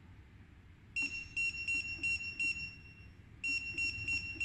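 Keypad beeps from a COXO C-Puma int+ electric micro motor control unit as its speed setting is stepped with the arrow buttons: short, high, single-pitched beeps about three a second, in two runs, the first starting about a second in and the second about three and a half seconds in.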